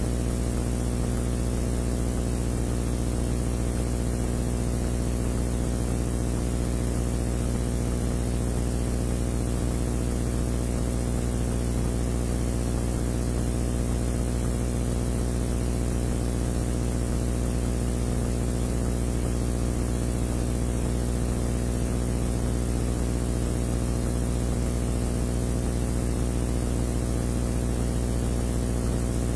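A steady, unchanging low hum with a layer of hiss over it.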